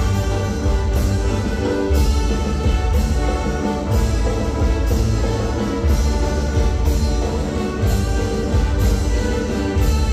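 Regional Mexican dance music in banda style: brass playing sustained chords over heavy bass and a steady beat about once a second.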